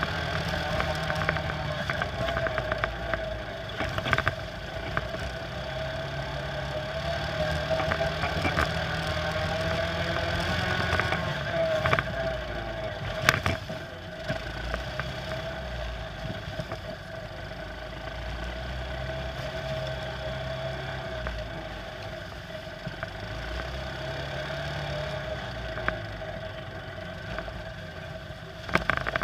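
Quad bike (ATV) engine running steadily, its pitch easing up and down with the throttle, heard from a camera mounted on the quad. A few sharp knocks cut through it, one about thirteen seconds in and a cluster near the end.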